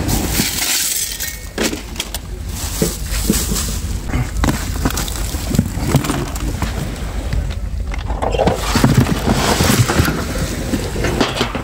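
Handling noise of fresh fish and plastic bags of ice being packed by hand into a plastic cooler, with irregular knocks and plastic rustling over a steady low rumble.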